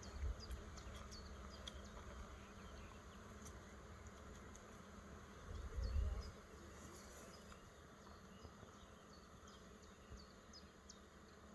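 Faint, steady buzzing of honeybees flying around an opened hive, with low rumbles on the microphone near the start and about six seconds in.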